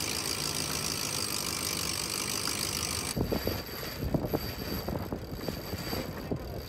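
Steady running noise of a sailboat's engine under way. About three seconds in it changes abruptly to gusts of wind buffeting the microphone.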